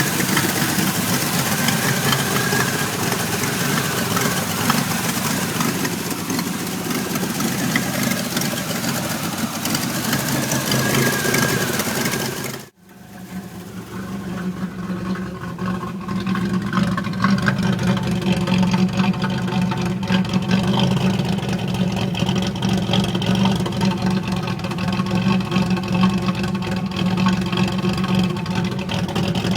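1991 Pontiac Firebird V6 engine idling roughly while it throws trouble codes 33 and 43. The sound cuts out sharply about thirteen seconds in, then the steady idle returns.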